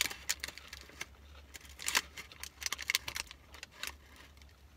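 Paper fast-food packaging crinkling as it is handled, a run of irregular crackly clicks.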